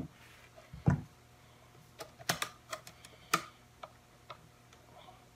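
Handling noise from a portable bandsaw as its blade is fitted: a couple of thumps in the first second as the saw is turned over on the bench, then a run of sharp clicks and ticks as the blade band is worked in between the guide rollers, fading to a few faint ticks.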